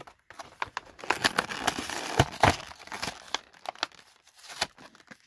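A cardboard-backed clear plastic blister pack being torn open by hand: the card rips and the plastic crackles and crinkles in a dense run of sharp snaps, loudest between about one and three seconds in, thinning out near the end.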